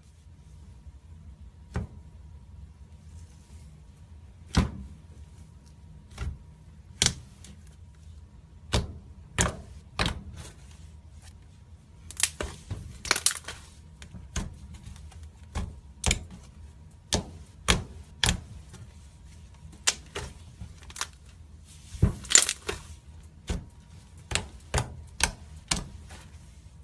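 Slime being pressed and worked by hand, giving sharp pops and clicks about once a second, irregularly spaced, with two short runs of dense crackling.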